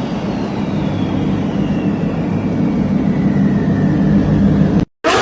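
Supercar engine and exhaust running at a steady pitch, with a faint high whine slowly falling in pitch over it. The sound cuts off abruptly near the end, and another loud engine sound starts right after.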